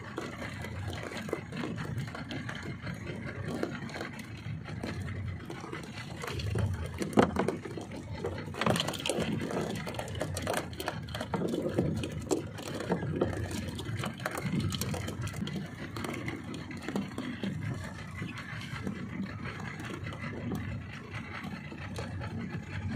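Open-air noise on a small fishing boat at sea: an irregular rushing haze of wind and water, with scattered knocks and rattles as fishing tackle is handled, the loudest about seven seconds in.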